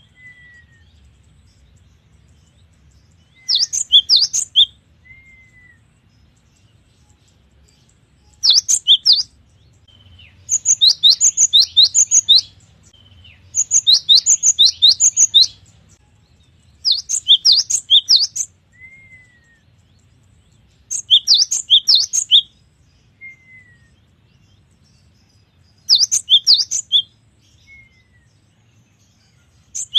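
Cinereous tit (gelatik batu) singing: loud phrases of rapid, sharp, high repeated notes come every few seconds, a longer run of them in the middle, with soft short down-slurred calls between phrases.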